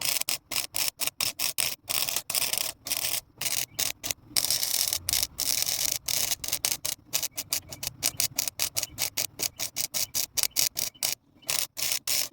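Welder crackling in many short on-off bursts, some under a quarter second and some nearly a second long, with brief silences between them, as a rusted-out door hinge bolt hole is built up with weld.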